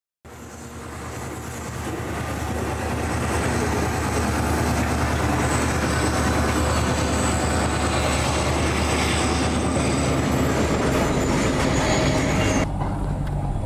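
Diesel freight train passing close by: the locomotives' engines drone low and steady under the loud rolling noise of the wagons, with a thin, steady high wheel squeal. The sound builds over the first couple of seconds, and its high part drops away suddenly about a second before the end.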